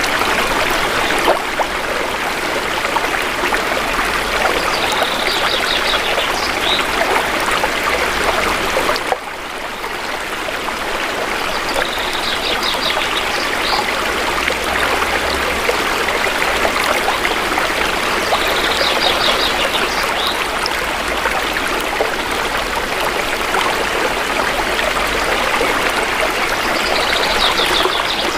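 Shallow river flowing steadily over stones, a dense, even rush of water. A bird calls a quick series of high notes every several seconds, and the sound briefly drops about nine seconds in.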